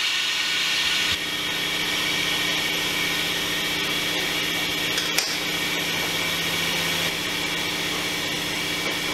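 Compressed-air vacuum brake bleeder running with a steady hiss on the bleed nipple of a brake caliper, a little quieter from about a second in, with one brief click near the middle. It is not drawing any fluid through its tube: the bleeder is broken.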